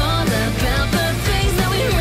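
Background music: a rock song with a steady bass line.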